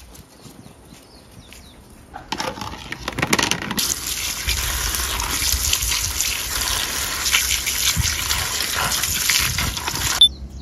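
Tap water running and splashing onto loquats in a plastic colander while a hand rubs the fruit clean. The flow starts about two seconds in and stops abruptly near the end.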